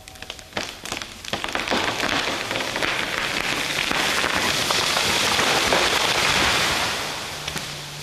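A felled tree falling: several sharp cracks of breaking wood in the first two seconds, then a swelling rush of crackling, swishing branches as the crown comes down through the canopy, loudest about six seconds in and fading near the end.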